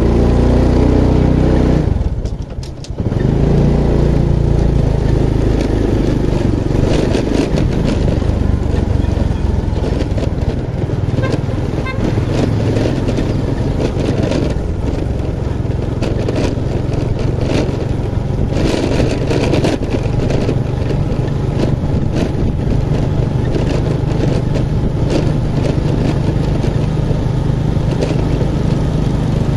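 Motorcycle engine running steadily while under way; the engine sound drops briefly between two and three seconds in, then picks up again and carries on evenly.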